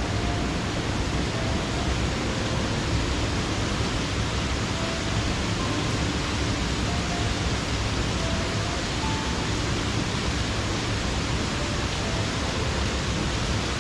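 Mountain waterfall pouring steadily, a dense, even rush of falling water with no let-up. Faint, soft music notes sound underneath it.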